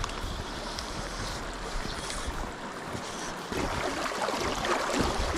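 Wind gusting on the microphone over the steady rush of stream water, growing louder a little past halfway.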